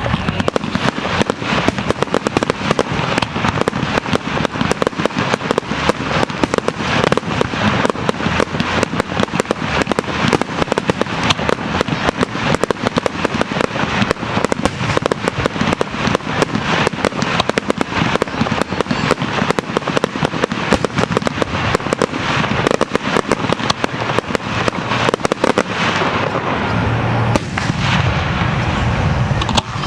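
Fireworks star mine barrage: aerial shells fired and bursting in rapid succession, a dense, unbroken crackle of cracks and bangs, with deeper booms coming in more heavily near the end.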